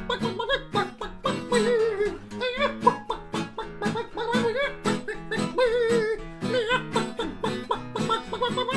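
A man's voice imitating a chicken, with wavering, pitch-bending clucks and squawks, over a strummed acoustic string accompaniment.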